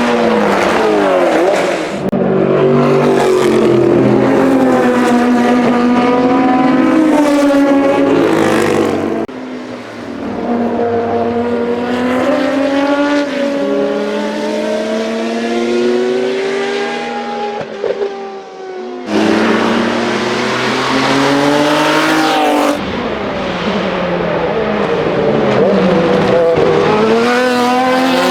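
Historic racing car engines at high revs on track: several cars passing in turn, their pitch climbing as they change up through the gears and dropping as each goes by. The sound switches abruptly from one car or shot to the next a few times.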